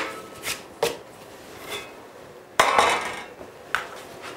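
A few separate knocks and clinks of hand tools being picked up and set down on a wooden workbench, the loudest about two and a half seconds in.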